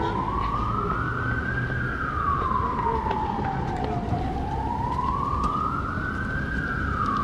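Emergency vehicle siren in a slow wail, rising and falling twice, over a low rumble of street traffic.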